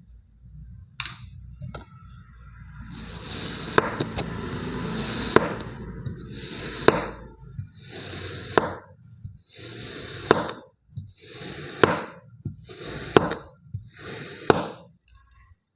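Kinetic sand being cut with a knife: about eight crunchy cuts, roughly one every one and a half seconds, each with a sharp click.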